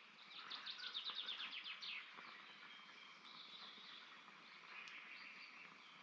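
A small songbird sings a fast trill of high notes lasting about a second and a half, followed by fainter, scattered high calls. A single faint click comes near the end.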